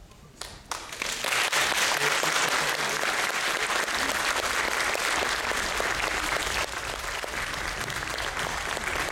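Audience applauding in a hall: a few separate claps, then full, steady applause from about a second in.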